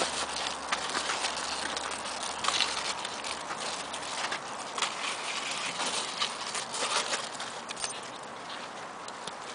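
Dog's hind paws, small wheelchair wheels and footsteps crunching over crusted, melting snow and ice, a stream of irregular crunches and clicks.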